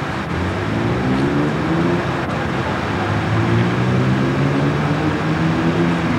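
Road vehicle engine accelerating past. Its pitch climbs, drops once at a gear change about two and a half seconds in, then climbs again, over a steady hiss of traffic noise.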